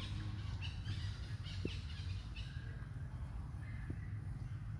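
Outdoor ambience: scattered short bird chirps over a steady low rumble, with two faint clicks, one about a second and a half in and one near the end.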